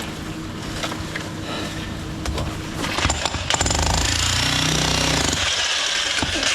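Power breaker (jackhammer) hammering rapidly and steadily, breaking off a section at a damaged drain gully; it starts up loudly a little over three seconds in, after some lighter knocking.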